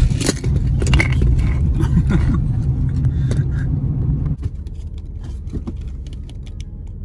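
Road noise inside a moving car's cabin: a steady low rumble with scattered light clicks and rattles. The rumble drops noticeably about four seconds in.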